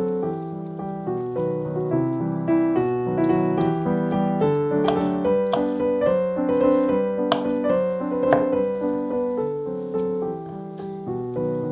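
Background piano music: a melody over sustained chords.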